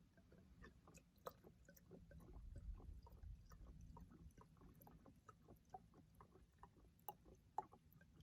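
Faint irregular clicking and gurgling as fuel is poured from a plastic gas can's spout into a chainsaw's fuel tank.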